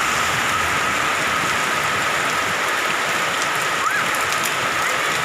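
Heavy rain falling steadily, an even hiss of drops pattering on the ground and surfaces.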